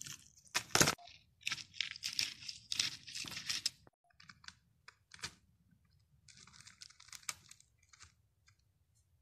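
Dry grass and small pebbles rustling and crunching in irregular bursts, with a few sharp clicks, the loudest about a second in; a long stretch of rustling follows, then another shorter one, and it goes quieter near the end.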